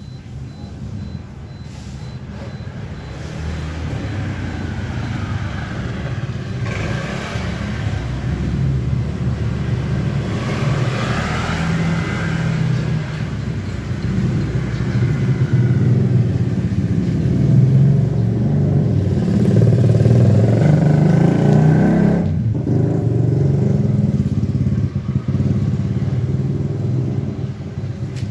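A motor vehicle's engine running close by, a heavy low rumble that grows louder over the first half and then holds steady.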